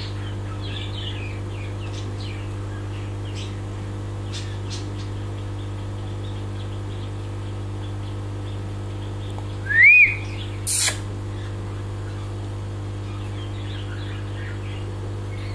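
Small birds chirping faintly over a steady low hum, with one louder rising-and-falling call about ten seconds in, followed shortly by a brief harsh squawk.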